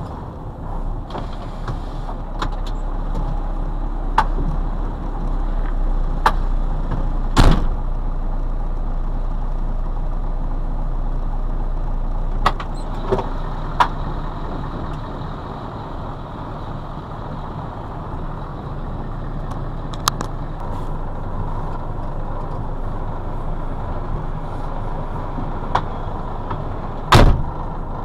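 Scania 142M V8 truck engine idling steadily, heard from inside the cab, getting a little louder a few seconds in and easing back about halfway. Several sharp knocks and clunks from the cab, the loudest about a quarter of the way in and again near the end.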